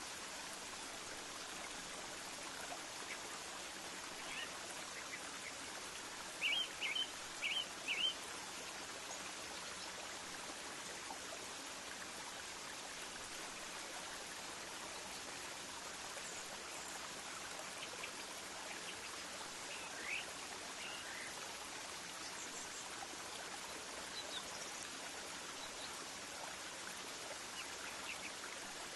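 Outdoor ambience of a steady hiss with short bird calls: a quick run of four chirps about six to eight seconds in, and scattered single calls later.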